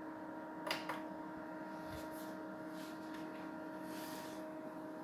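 Small USB mini air cooler's fan running with a steady whine, with two quick clicks close together less than a second in.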